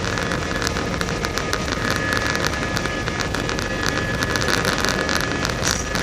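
Airbus A319 cabin noise while the aircraft rolls on the ground: a steady jet-engine whine over a low rumble, with frequent light crackles and rattles on top.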